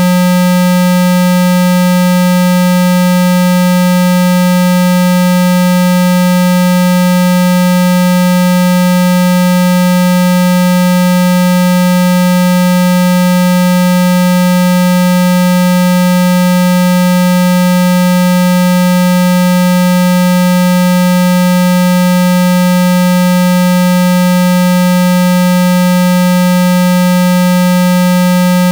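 Loud, steady electronic test tone at 195 Hz, a low buzzy hum with a ladder of overtones, held without any change. It is a water-eject tone, played at full volume so that the phone speaker vibrates and pushes trapped water out.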